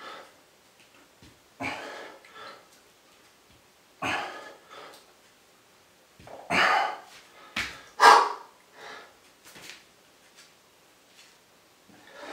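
A man breathing out hard with each one-handed push-up, one heavy breath every two to two and a half seconds, with the loudest few coming close together about two-thirds of the way in.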